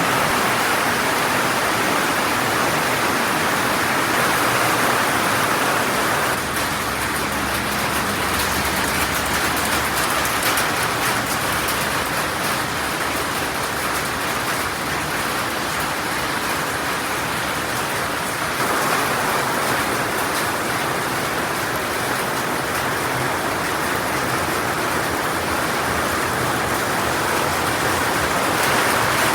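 Heavy rain pouring steadily, a dense, even hiss; its tone shifts slightly about six and eighteen seconds in.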